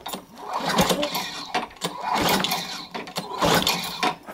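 Craftsman mower's 6.75 HP Tecumseh engine, blade removed, being pull-started: about three rope pulls about a second and a half apart, the recoil starter rattling and the engine turning over without catching.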